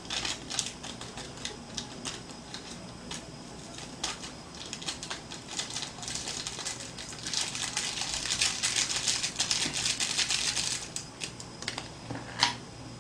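A foil ramen seasoning packet being shaken and tapped over a dry block of instant noodles, the soup powder falling onto the noodles: a run of small crinkly ticks and rustles, busiest from about seven to eleven seconds in, with one sharper click near the end.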